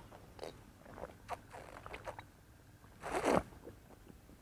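Someone swigging from a glass bottle: small mouth clicks and swallowing sounds, with one louder breathy sound about three seconds in.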